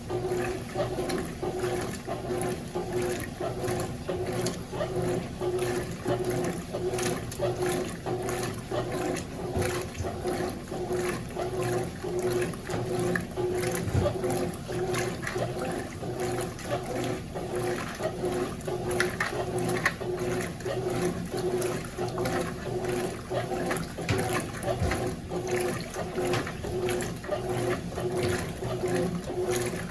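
Consul CWS12 12 kg washing machine in its wash cycle: water sloshing through a load of jeans over a steady motor hum, swelling and dipping in a regular rhythm.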